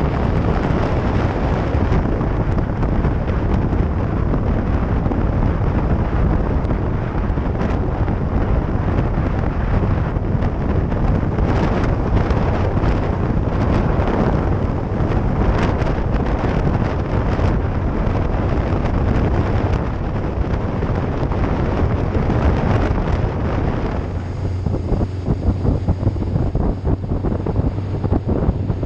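Heavy wind buffeting on the microphone of a moving vehicle, over a steady low engine drone. Near the end the wind noise eases and the engine hum comes through more clearly.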